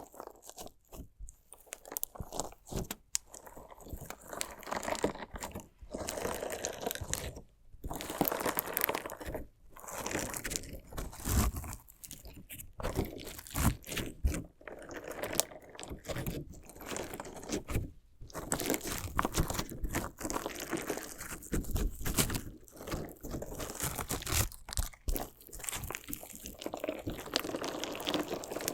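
Crunchy slime mixed with decorative stones being worked close to the microphone: crunching and crackling in quick irregular bursts, with brief pauses between them.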